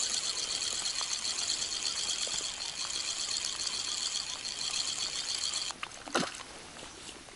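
Spinning reel on a feeder rod being cranked steadily, a fine rapid ticking whir as a small bream is reeled in. The cranking stops abruptly near six seconds in, followed by a brief splash from the fish at the surface.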